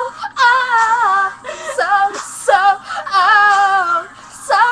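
Girls singing loudly in high voices: several short phrases, then a long held, wavering note, a brief pause, and a new note starting just at the end.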